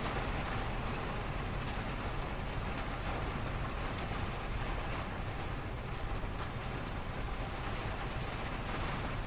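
Steady rain falling on window glass, with a continuous low rumble of freeway traffic underneath and a few light drop ticks.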